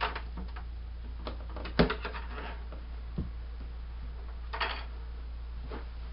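Plastic buckets being handled: a few scattered knocks and clatters as nested plastic buckets are lifted and set down, the loudest about two seconds in, over a steady low hum.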